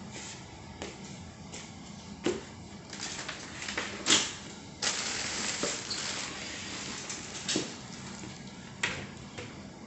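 Scattered soft knocks from a handheld phone being carried and handled while walking, with about two seconds of rustling in the middle.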